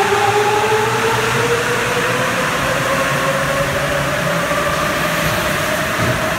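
Sapporo Tōhō Line rubber-tyred subway train pulling out of the station. Its motors give a steady whine that rises in pitch as it picks up speed, over a loud, even rumble.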